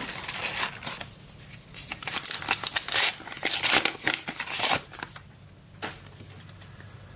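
Crinkling and rustling of a trading-card pack wrapper and cards being handled: a dense run of crackles for about five seconds, then one more crackle near the end.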